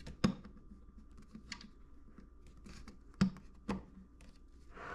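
Fingers pressing a flexible TPU 3D-printed back cap into the metal rear cell of an Apertura Carbonstar 150 telescope: light handling ticks with three sharp clicks, one just after the start and two close together about three seconds in, over a faint steady hum.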